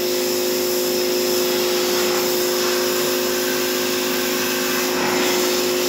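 Electric car-wash pressure washer running steadily, its motor humming under the hiss of the high-pressure water jet spraying against the car's lower side and wheel arch.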